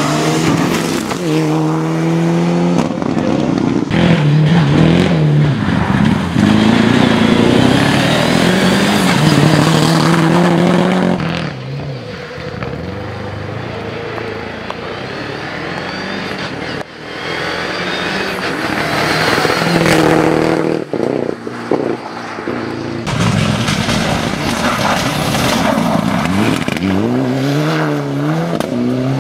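Mitsubishi Lancer Evolution rally car's turbocharged four-cylinder engine revving hard and shifting through the gears at speed, pitch climbing and dropping back again and again, with tyre spray hissing on wet tarmac. It is quieter for a stretch in the middle and louder again near the end.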